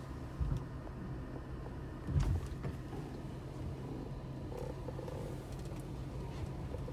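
Mercedes-Benz W124 E320's M104 straight-six engine idling steadily, with two short low thumps about half a second and two seconds in.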